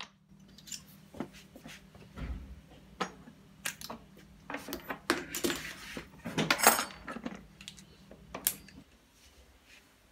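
Irregular light metallic clicks and clinks, loudest about six to seven seconds in, over a faint steady low hum that stops about nine seconds in.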